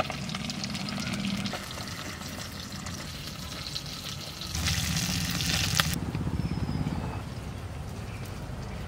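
Boiled bitter gourd and vegetables being mashed by hand with mustard oil in a bowl: wet squelching and fine crackling, with a louder noisy stretch that cuts off abruptly about six seconds in.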